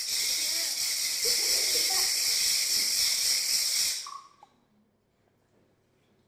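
A loud, steady hiss that starts suddenly and cuts off about four seconds in, made as a foley sound effect.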